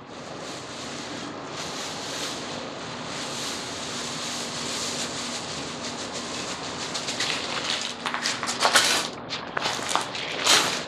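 Fine oyster shell flour pouring from a bag onto a soil pile with a steady soft hiss, then a shovel digging and scraping into the gritty peat, pumice and rice hull mix in a run of crunching scrapes during the last few seconds, loudest near the end.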